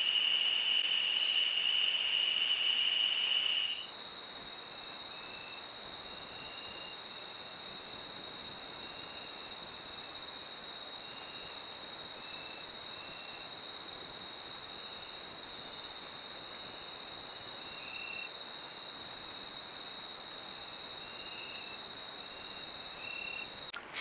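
Steady high-pitched drone of rainforest insects. It changes abruptly about four seconds in to a higher, layered drone, with short chirps repeating irregularly over it, until it cuts off just before the end.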